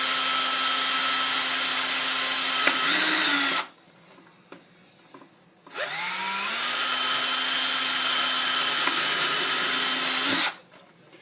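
Electric drill boring through the stacked plastic layers of a stormtrooper helmet (cap back, face and lens), running steadily and stopping about three and a half seconds in. After a two-second pause with a few small clicks, it spins up again with a rising whine, runs for about five seconds and stops.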